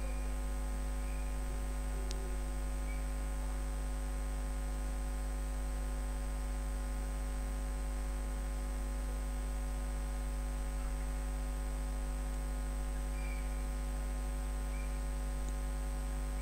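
Steady electrical mains hum in the recording: a constant low buzz with a faint high-pitched whine above it, unchanging throughout.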